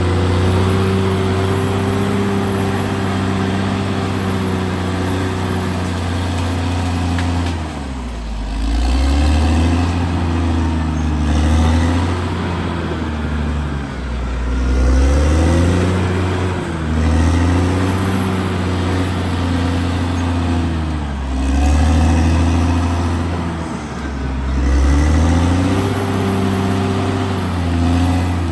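Caterpillar D6R XL bulldozer's diesel engine running, steady at first, then from about eight seconds in its note repeatedly dropping and picking up again every two to three seconds.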